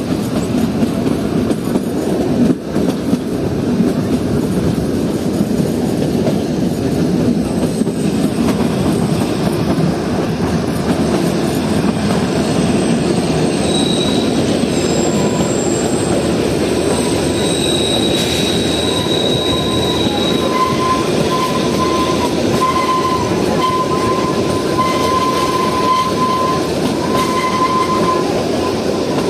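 Kalka–Shimla narrow-gauge toy train running, a steady rumble of wheels on the track heard from aboard. From about halfway on, thin high wheel squeals come and go over the rumble.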